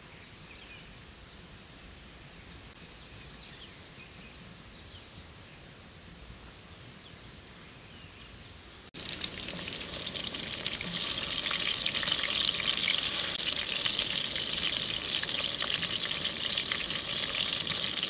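Quiet outdoor background with a few faint bird chirps, then, about halfway through, an abrupt jump to loud sizzling: tomato pieces frying in hot cooking oil in an aluminium pot on a camping gas stove.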